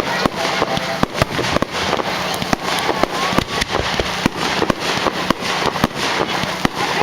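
Fireworks going off in rapid succession: a dense run of sharp bangs and crackles, several a second, with no let-up.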